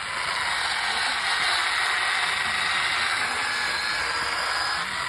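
Chainsaw cutting into a tree trunk, running steadily with a high whine.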